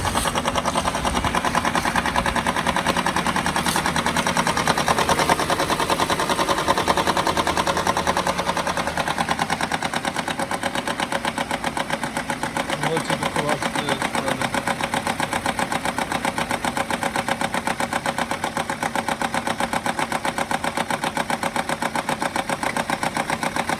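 Z16XER 1.6-litre four-cylinder petrol engine idling steadily with a rapid, diesel-like clatter, a knock that the owner is showing as a fault.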